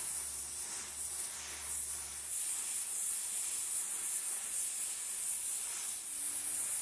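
Acetylene torch with a small brazing tip burning with a steady hiss, its flame held on the narrow neck of a steel lathe drive shaft to heat it for straightening.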